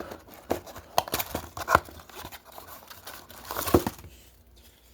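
Wrapper of a small collectible blind packet crinkling and tearing as it is opened by hand, in irregular sharp crackles, loudest about halfway through and again near the end.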